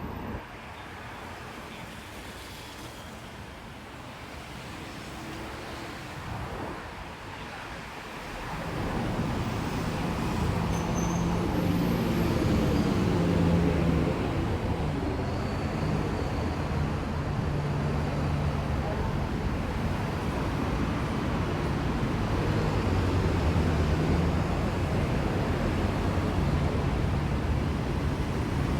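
City street ambience with traffic noise. About eight seconds in it grows louder and a low humming tone sets in, shifting in pitch every second or two.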